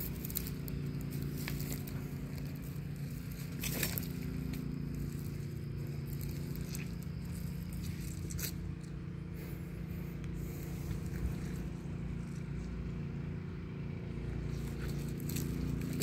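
Footsteps crunching on dry leaf litter and twigs, with a few sharp crackles, over a steady low hum.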